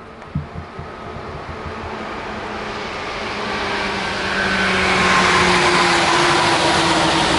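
Tokyu 8500 series electric train approaching and passing, its traction motors giving a loud whine of several steady tones that drift slightly lower, over rolling wheel noise that grows louder throughout. A few low thumps about half a second in.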